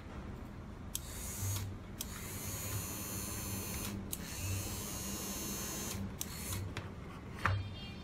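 Small can-type brushed DC motors with toy wheels whirring in several short runs, switched on and off by a radio-controlled 12 V relay board, with a sharp relay click at each start and stop. The loudest click comes near the end.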